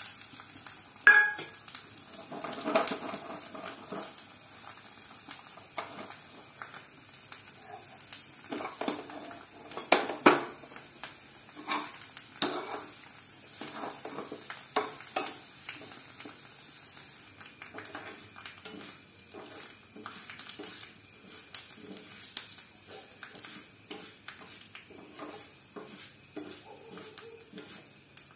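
A metal spoon clinking and scraping against steel and iron cooking pans during stirring, with a loud knock about a second in and a cluster of clinks about ten seconds in. Underneath, a faint steady sizzle of mustard seeds and spices tempering in hot oil in a small iron kadai.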